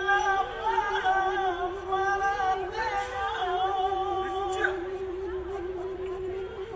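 Indonesian gamelan-style music: a steady, slightly wavering held tone with a slow melody moving above it.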